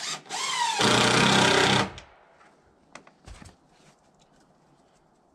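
Cordless power driver, most like an impact driver, spinning up and then running in a rapid hammering buzz for about a second near the start. A few short knocks follow about three seconds in.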